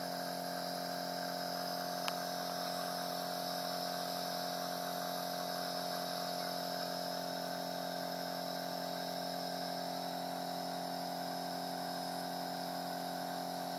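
Pari TurboBoy S compressor nebulizer running, a constant hum with hiss, with one faint click about two seconds in.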